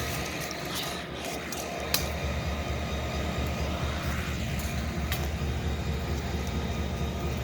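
Idling locomotive engine running as a steady low rumble, with a couple of faint clicks.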